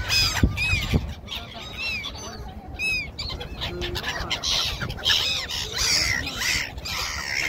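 A flock of black-headed gulls calling, repeated short cries that rise and fall in pitch, more crowded in the second half. Two low thumps sound about half a second and a second in.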